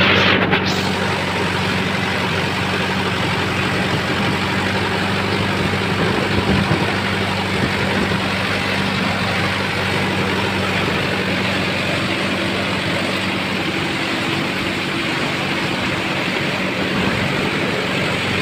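Compact farm tractor's engine running at a steady speed as the tractor drives through mud.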